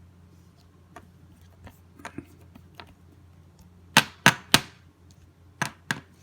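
Trading cards being handled, making sharp clicks and snaps: a few faint ticks, then three loud snaps in quick succession about four seconds in, and two more near the end.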